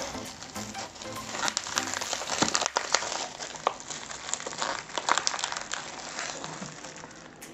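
Bubble wrap and plastic packaging being pulled and torn open by hand, with irregular crinkling and crackling.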